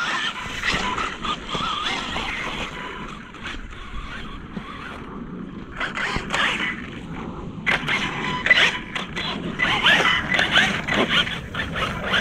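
Electric motor of an Axial RYFT RC rock bouncer whining up and down with the throttle as its Pro-Line Black Mamba tires dig into and spray loose sand on a climb. It eases off for a couple of seconds a few seconds in, then picks up again.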